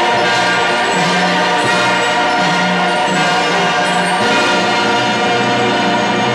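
Orchestral music, with full sustained chords and a bass line that shifts note every half second or so.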